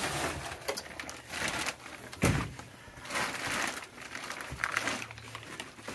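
Concrete cinder blocks being handled on a dirt floor: gritty scraping in several short stretches and one heavy knock a little over two seconds in.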